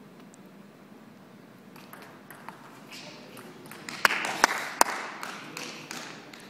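Table tennis ball clicking: a few light taps, then three loud, sharp clicks about half a second apart over a brief rise of hall noise.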